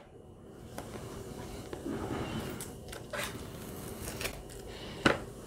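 A sticker being peeled off a cardboard box of paint pens and the box being handled: light rustling and scraping with scattered small clicks, and a couple of sharper taps near the end.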